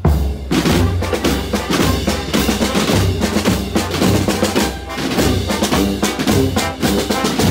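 Marching band drums playing a march: snare drums with rolls over a steady bass drum beat.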